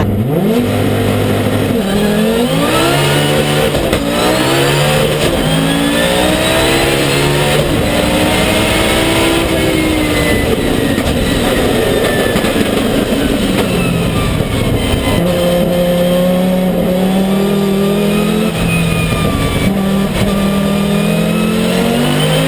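Cabin view of the Audi Quattro S1 E2 Pikes Peak replica's 850 hp 2.3-litre turbocharged inline-five at full throttle. Its note climbs and drops back again and again as it pulls up through the gears, then holds steadier through the second half and rises again near the end.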